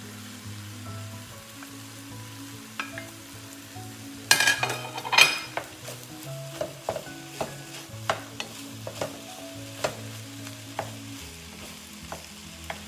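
Cooked rice being broken up and stir-fried in a hot wok with a spatula. The food sizzles while the spatula scrapes and knocks against the pan, with a loud flurry of scraping about four seconds in and scattered clicks after that.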